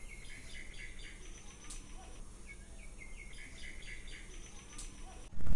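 A small bird singing: two phrases of quick, high chirps about three seconds apart, over a faint steady low background hum. Right at the end a louder noise starts suddenly.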